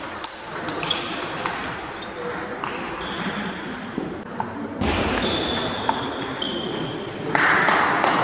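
Table tennis balls clicking sharply and irregularly off bats and tables in an echoing sports hall, with background voices and a few short high squeaks; the hall noise rises near the end.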